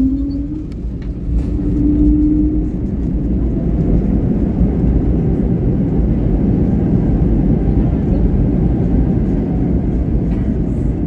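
Cabin noise of an Airbus A320-family jet airliner rolling along the runway after landing: a steady, loud rumble of engines and wheels. In the first few seconds a short low steady tone is heard twice.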